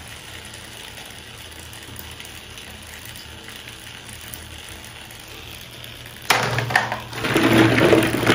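A low, steady background hum, then, about six seconds in, a hand plunging into a tub of plastic balls sitting in water: a sudden rattling of balls knocking together with water splashing.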